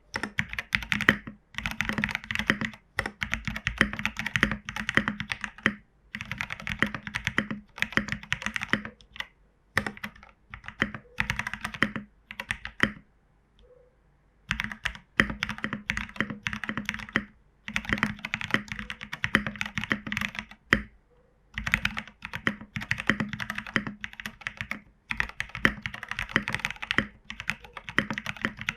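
Typing on a Geonworks Frog WKL mechanical keyboard with MT3 keycaps and broken-in Cherry Hyperglide Black linear switches, lubed and filmed, fitted with 63.5 g springs. The keys clack in fast runs of a few seconds each, with short pauses between them and a longer pause about halfway through.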